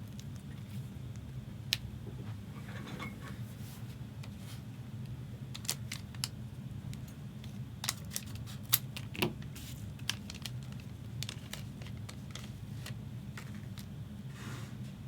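Trading cards being handled and flipped through, with scattered light clicks and snaps of card stock over a steady low hum.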